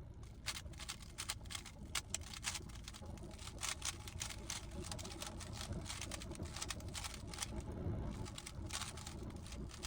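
GAN 15 speedcube being turned quickly in the hands, a dense irregular run of plastic clicks from its layers over a low handling rumble.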